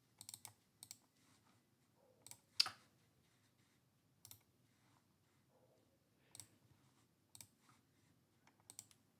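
Faint scattered clicks from a computer mouse and keyboard, singly and in small groups, the sharpest a little over two seconds in, as the laptop's camera and video capture settings are worked on.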